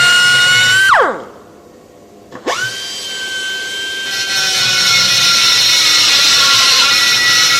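High-speed rotary grinder whining steadily, switched off about a second in and spinning down, then restarted about two and a half seconds in and spinning back up. From about four seconds in it grinds under load into the aluminium engine block, cutting out the crack in the crankshaft bearing bed.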